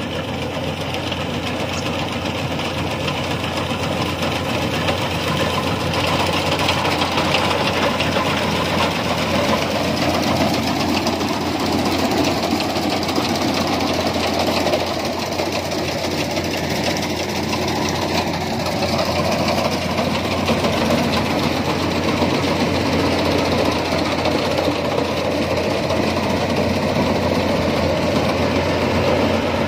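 Crawler rice combine harvester running steadily under load while cutting and threshing standing rice, heard up close. The sound is a dense mechanical noise of engine and machinery.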